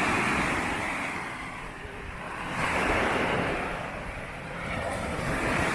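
Waves breaking on a beach, the wash swelling and fading about every three seconds, with wind buffeting the microphone.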